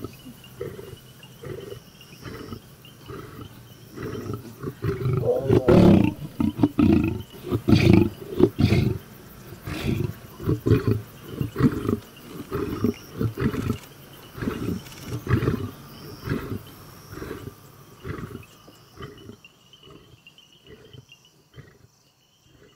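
Male lion roaring in a bout: the calls are loudest about six to nine seconds in, then come as shorter calls repeated roughly every half second to second that fade away near the end.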